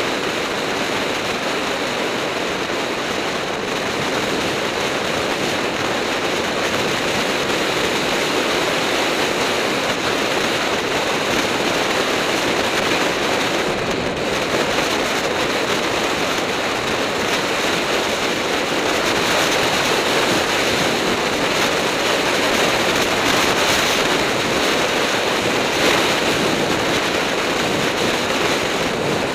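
Steady rush of wind buffeting the camera's microphone as a road bike descends at speed, slightly louder in the second half.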